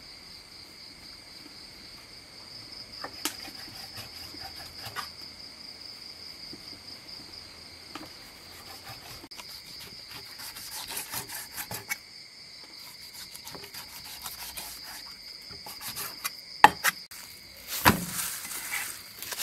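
A cleaver slicing raw pork on a wooden chopping block: scattered knocks of the blade against the wood, a quick run of cuts around ten to twelve seconds in, and louder knocks near the end. Insects chirr steadily behind.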